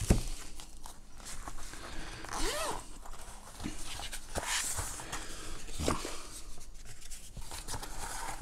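Hands handling a padded zip-up carrying case: a knock right at the start, then light clicks, rustling and short zipper rasps.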